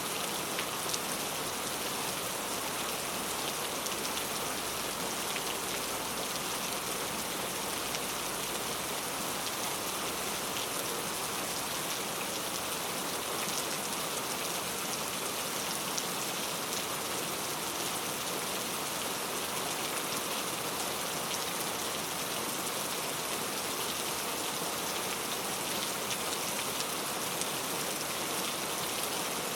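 Heavy rain falling steadily: a dense, even hiss of many drops striking surfaces.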